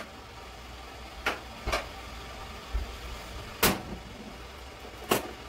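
A few short, sharp knocks and clatters of kitchen things being handled, the loudest about three and a half seconds in, over a low steady hum.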